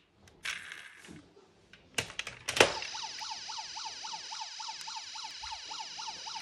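A few sharp clicks from a diecast toy car being handled. Then, about two and a half seconds in, an electronic siren starts: a fast yelp, its pitch sweeping up and down about four or five times a second at an even level.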